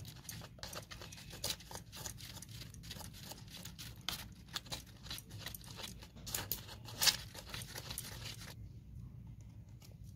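Steel spoon rapidly beating raw eggs with chopped onion and spices in a cup of layered leaves: quick wet scraping with crinkling of the leaves. It stops about eight and a half seconds in.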